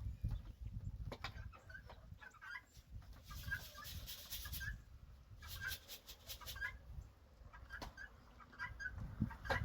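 Chickens clucking in short, scattered calls, over a low wind rumble on the microphone.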